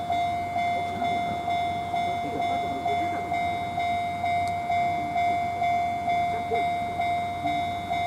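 Japanese railway level-crossing alarm ringing its repeating ding-ding, about one and a half chimes a second, each chime fading before the next. It means the crossing is closed with the barriers down for a train.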